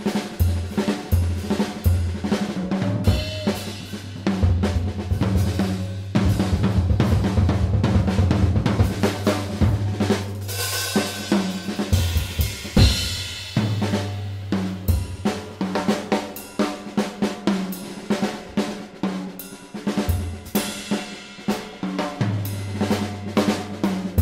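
Background music: a steady drum-kit beat over a sustained bass line.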